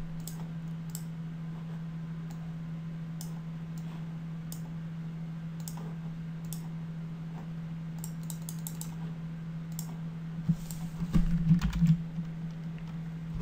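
Scattered sharp clicks of a computer mouse and keyboard, thickening into a quick run of clicks about two-thirds of the way in, over a steady low hum, with a few louder dull bumps near the end.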